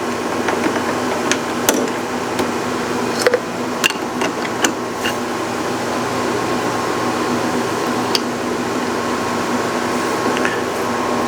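Steady machine hum in a machine shop, with scattered light metallic clicks and taps as a cutting tool is swapped in a lathe's tool post.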